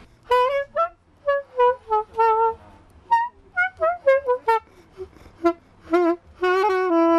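Saxophone being played with a fresh reed, which replaces one that was worn out and split. It plays a run of short, separate notes, then a few longer held notes near the end. The sound is much livelier.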